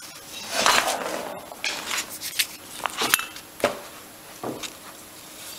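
Handling noises: a rustle about half a second in, then about five light, sharp clicks and taps as a small metal carburettor body and a pen are handled.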